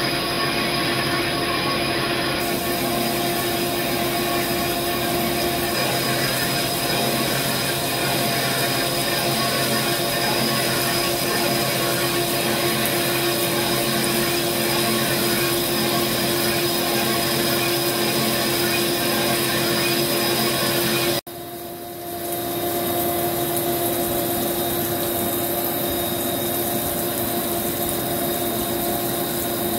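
Vertical CNC lathe turning a cast-iron turbo compressor housing under flood coolant: a steady machine whir with several held tones over an even hiss. The sound cuts out abruptly about two-thirds of the way through and comes back a moment later, a little different in tone.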